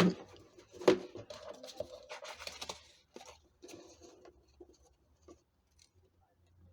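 Plastic seed container being handled on a work surface: a sharp click about a second in, then scratchy rubbing for about two seconds, then a few faint light taps.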